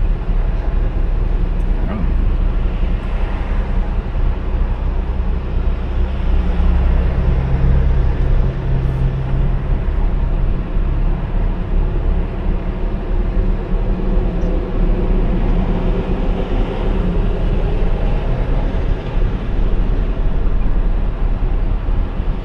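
Car driving on city streets: steady road and engine noise with a low rumble. The rumble grows louder about six seconds in and eases off a few seconds later.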